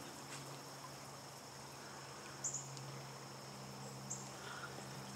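Faint outdoor ambience: a steady low hum with a few short, high chirps spaced a second or two apart.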